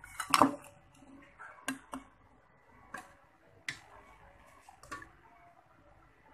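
Dishes and utensils being handled: a louder clink just under half a second in, then single light clicks and taps about a second apart.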